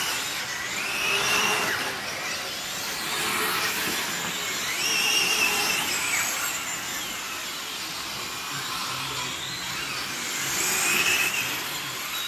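Electric 1:8 GT radio-controlled race cars, their motors whining as they accelerate and pass, the pitch rising and falling. The whine swells about a second in, again around five seconds in, and near the end.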